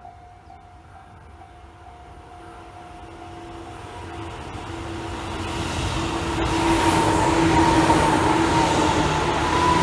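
Tobu 9000 series electric train approaching: the rumble of the wheels on the rails grows steadily louder over several seconds until the train is close. Steady humming tones ride over the rumble.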